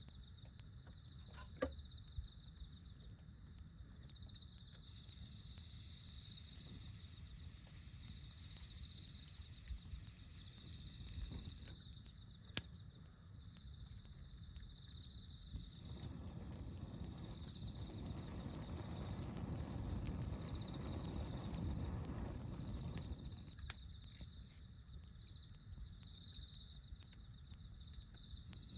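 A steady, high-pitched chorus of insects trilling, the loudest sound, over a wood campfire crackling with a couple of sharp pops, one near the start and one about halfway. A low rushing noise swells for several seconds in the second half.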